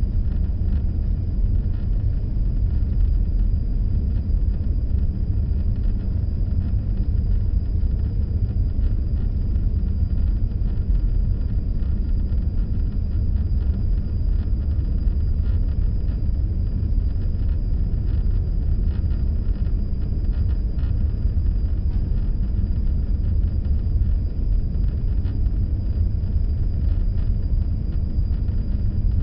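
Steady low rumble of a moving vehicle: road and engine noise, with a faint steady high whine above it.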